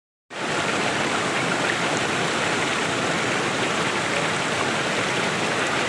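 Steady rush of flowing water from a stream, starting abruptly just after the start.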